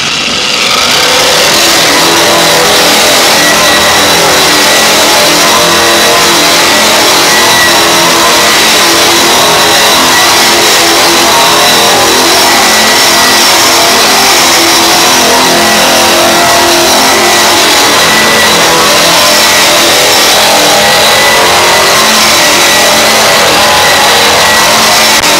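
Handheld Eastwood stripping machine with a wide stripper wheel spinning up, then running steadily against bare sheet steel with a constant whine and abrasive scrubbing. It is taking surface rust off the hood side to prepare the metal for primer.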